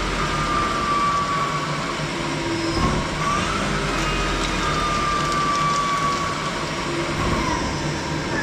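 CNC lathe spindle turning a metal pipe coupon while the carbide insert feeds through a cutting pass: a steady hiss of cutting over the machine's running hum, with faint whining tones that drift slightly down in pitch.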